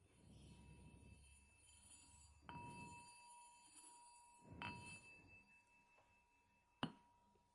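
A temple bell, faint, struck three times about two seconds apart. After each strike the bell rings on at the same clear, high tone, and the last strike is the sharpest and loudest.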